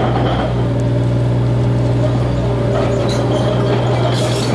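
Crawler excavator (backhoe) engine running steadily, a deep even hum with a few higher steady tones above it.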